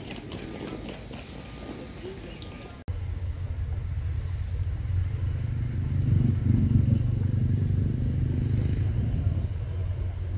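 Station platform sounds with faint voices; then, after a cut about three seconds in, the low rumble of a diesel locomotive's engine as a train pulls in toward the platform, growing louder.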